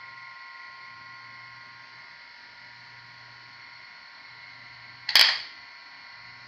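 CM 5509 hard disk drive (a Seagate ST-4038 type) spinning with a steady high whine, which the owner suspects means the platters spin faster than they should. About five seconds in comes a single loud, sharp knock: a strong hit of the drive's linear head actuator.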